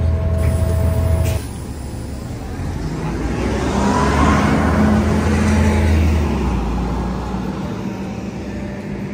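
Bus engine drone heard from inside the cabin, cut off after about a second. Then a city bus pulls away down the road, its engine and tyre noise swelling about three seconds in and fading away.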